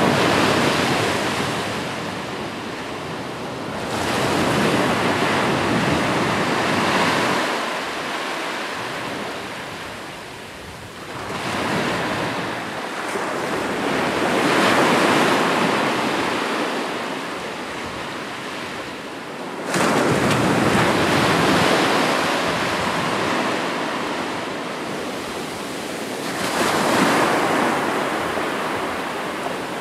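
Ocean surf: waves breaking and washing up the shore, the rush swelling and fading every several seconds, with a sudden crash of a breaking wave about two-thirds of the way through.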